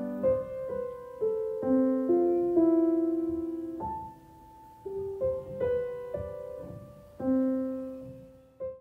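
Slow, gentle piano background music: single notes and soft chords struck one after another, each ringing and fading away. The music stops abruptly at the very end.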